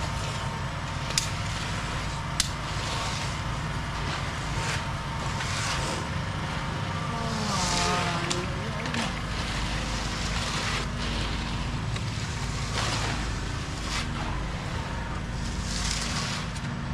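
An engine running steadily, with a few sharp clicks and brief hissy swells over it.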